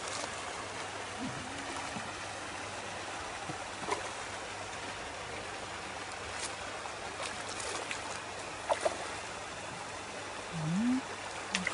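Steady water hiss with a few small sharp splashes as a hooked mirror carp swirls at the surface close in.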